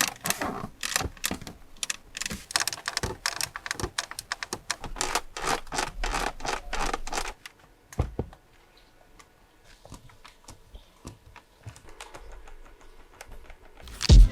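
Plastic interior trim of a Mercedes-Benz S-Class W223 clicking and creaking in a dense, rapid run for about seven seconds, then in sparser, fainter clicks. Music comes in at the very end.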